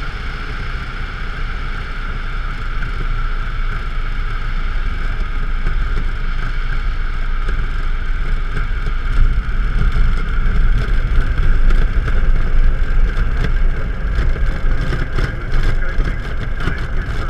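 DHC-1 Chipmunk heard from inside the cockpit: its de Havilland Gipsy Major four-cylinder engine runs steadily at low power for landing, mixed with wind rush. From about nine seconds in, as it touches down and rolls on the grass strip, the sound grows louder and uneven, with a rumble and repeated jolts.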